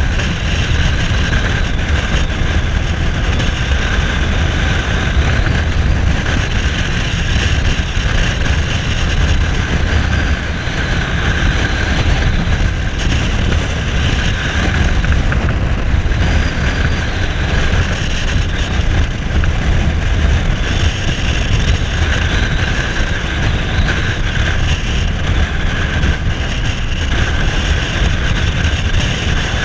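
Cruiser motorcycle engine running steadily at road speed, with wind noise on the microphone.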